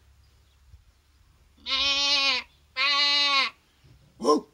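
A man imitating an animal's bleat: two long, steady calls about a second apart, then a short vocal sound near the end.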